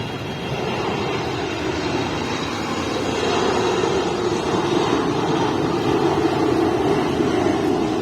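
Jet airliner flying low near the airport, its engine noise a steady rush that swells louder through the middle and latter part.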